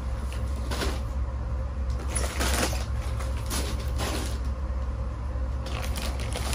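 Shrink-wrapped packs of bottled water being lifted out of a metal shopping trolley and set down on the floor: a handful of short plastic rustles and knocks, over a steady low hum.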